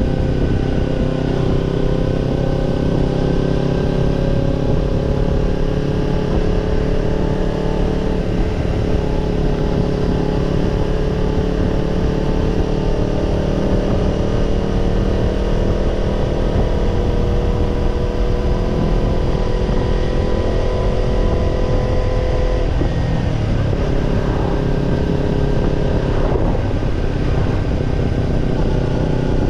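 Kawasaki Ninja 250's parallel-twin engine running through a BEET NASSERT Evolution Type II titanium slip-on muffler, the bike under way. The exhaust note holds steady with a slowly easing pitch, then drops abruptly about three-quarters of the way through.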